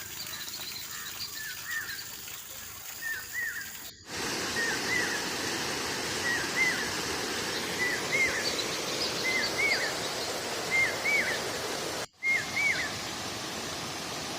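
A bird repeating a short two-note call about every second and a half, over a steady rush of flowing water. The water noise gets louder about four seconds in, and the sound cuts out for a moment near the end.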